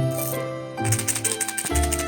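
Background music: a light tune over a bass line that changes note about every second, with a quick rattling, like a shaker, a little past the middle.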